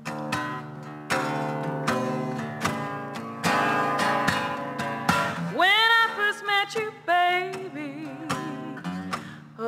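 Acoustic guitar strummed in slow, even strokes. About halfway through, a woman's singing voice comes in over it, holding notes with a wide vibrato.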